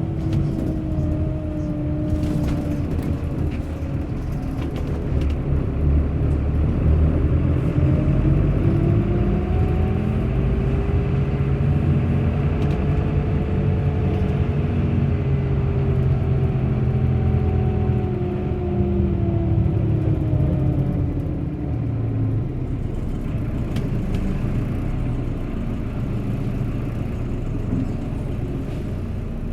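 Bus engine running with a low rumble, and a whine that rises in pitch over several seconds and then falls away, as the bus gains speed and then slows.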